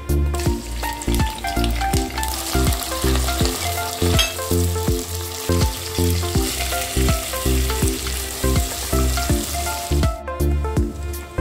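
Sliced onions and whole spices sizzling in hot oil in a pot while they are stirred with a wooden spatula, the sizzle cutting off suddenly near the end. Background music with a steady beat plays throughout.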